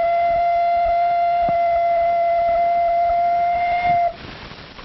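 Ocarina blown loudly on one steady note, held for about four seconds and then stopping.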